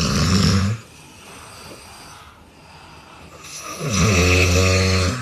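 An adult snoring in sleep. One loud snore ends under a second in, then comes a quieter breath, then another long, loud snore starting about four seconds in.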